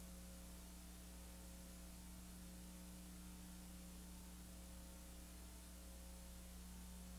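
Near silence: a faint, steady electrical mains hum with background hiss.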